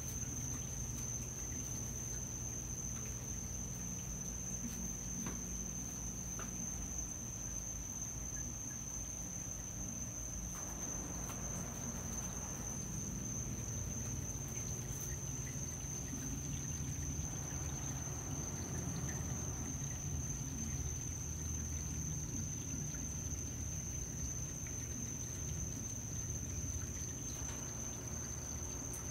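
Aquarium filter running: a steady low hum with water trickling, and a thin steady high whine above it. The trickle swells softly twice.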